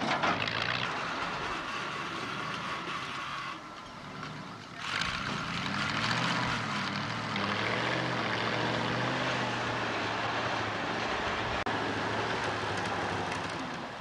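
Wheel loader's engine running under load as it carries logs on its forks, easing off briefly about four seconds in and then running steadily again.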